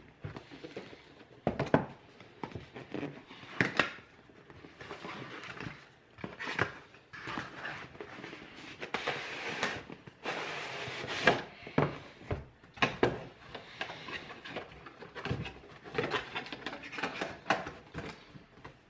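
Cardboard graphics-card box being handled: scraping and rustling as the printed outer sleeve slides off the plain inner box, with irregular knocks and bumps.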